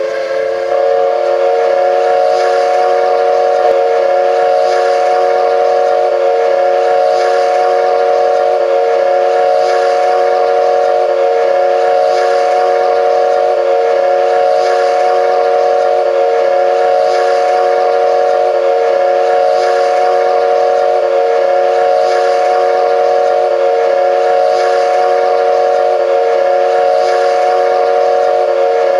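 A horn or whistle holding one steady chord of several notes without a break, with a faint pulse about every two and a half seconds.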